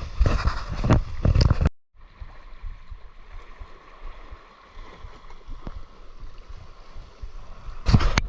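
A run of loud knocks and rustling handling noise. It breaks off abruptly, and a steady wash of moving water with faint ticks follows. Loud knocks return near the end.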